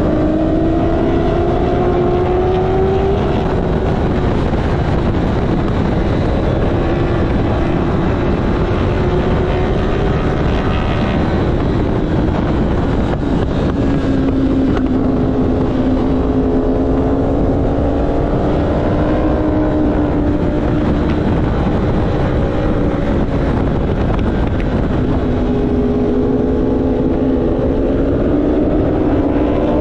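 Race motorcycle's engine at speed, recorded on board. Its pitch climbs under acceleration and drops back several times, over heavy wind noise on the microphone.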